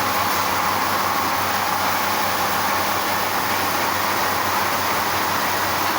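A shredding machine running steadily: an even rushing noise with a low hum beneath, with no change in pitch or load.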